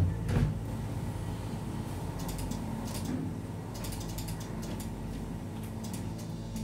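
Irregular runs of quick, ratchet-like mechanical clicks over a steady low hum.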